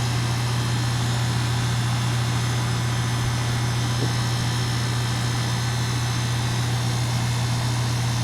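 Outdoor unit of a 2-ton Goodman heat pump running in cooling mode: a steady compressor hum with the condenser fan's air rushing over it.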